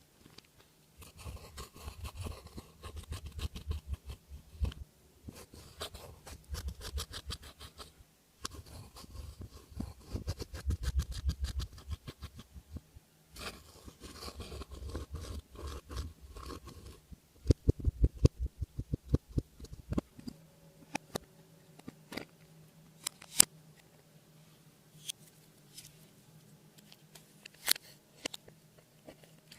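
Clear slime being squished and kneaded by hand: rapid sticky clicks and pops in dense runs, thinning out to scattered single clicks about twenty seconds in.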